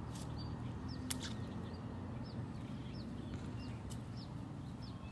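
A bird calling again and again in short, high, falling chirps, roughly one or two a second, over a steady low outdoor hum. A single sharp click comes about a second in.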